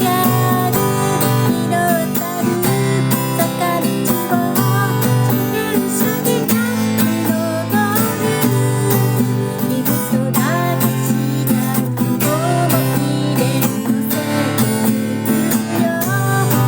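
Acoustic guitar strummed in a steady rhythm, with a voice singing along to it.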